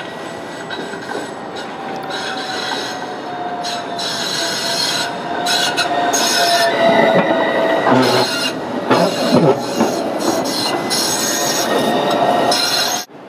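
AnsaldoBreda Sirio low-floor tram passing close by, getting louder as it goes past, with a steady whine that slowly drops in pitch and some knocks and scrapes from the wheels on the rails. The sound cuts off suddenly near the end.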